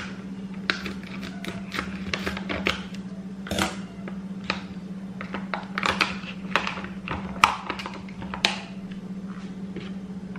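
Stiff plastic refill pouch crinkling and crackling in irregular bursts as it is worked open by hand. The crackling dies down about a second before the end. A steady low hum runs underneath.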